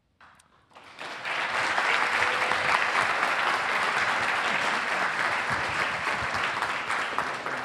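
Audience applauding: a dense, steady clapping from a roomful of people, starting about a second in and beginning to die down near the end.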